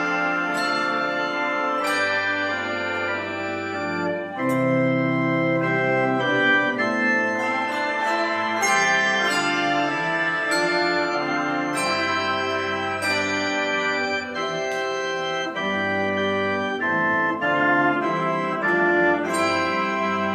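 Handbell choir ringing a processional: chords of many tuned handbells struck together again and again, each ringing on, with low bass bells sustaining underneath.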